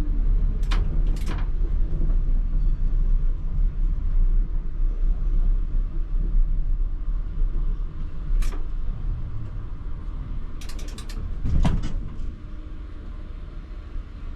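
ČKD Tatra T3R tram running on rails, with a steady low rumble of wheels and running gear. Sharp clacks from the track sound over it: two about a second in, one a little past the middle, then a quick rattle of clicks and a heavier knock near the end, after which the running quietens.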